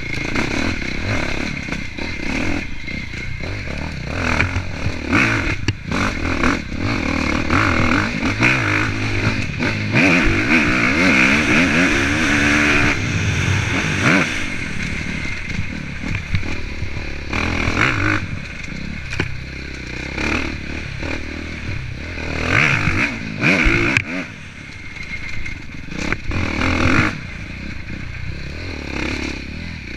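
Off-road dirt bike engine revving up and rolling off again and again as it is ridden hard along a dirt trail, heard from a camera on the rider's helmet, with the clatter of the bike over rough ground. It is held hardest about ten to thirteen seconds in, then drops away.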